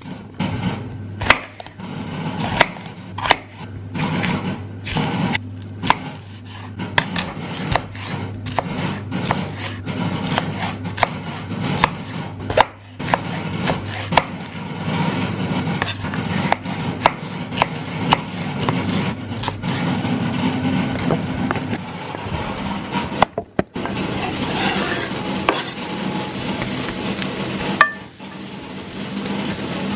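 Kitchen knife chopping bell peppers on a wooden cutting board: a run of sharp, irregular knocks, roughly one or two a second. From about 23 seconds in this gives way to a steady sizzle of peppers frying in a pan.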